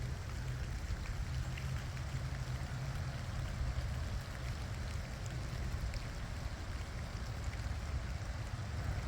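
Steady rain falling, an even hiss with faint scattered drip ticks, over a steady low hum.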